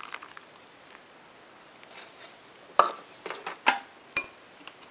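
A few sharp clinks and knocks of kitchenware against a glass bowl and worktop, with faint ticks near the start and a handful of louder separate knocks in the second half.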